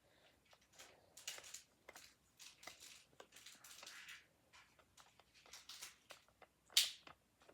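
Small screwdriver working a screw on a plastic toy's battery compartment cover, with faint clicks and handling rustles, and one louder brief scrape near the end.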